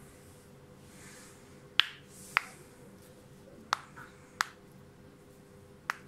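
Finger knuckles cracking: five sharp single pops, spaced about half a second to a second and a half apart.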